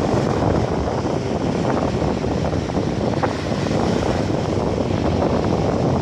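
Steady wind rumbling on the microphone at the seashore, with surf on the beach beneath it.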